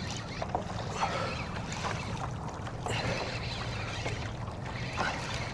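Water lapping and trickling against a kayak's hull at sea, with a few faint small knocks over a steady low rumble.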